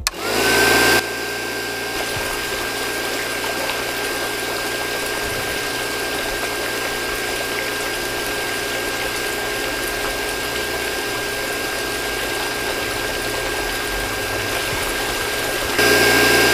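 Small DC-motor toy water pump switched on, spinning up to a steady high whine, with water trickling into a small tank. It is louder for the first second and again near the end.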